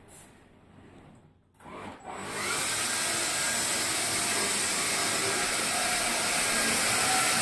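Hoover Air Cordless Lift upright vacuum switched on about two seconds in: the motor spins up over half a second, then runs steadily with a loud even rushing.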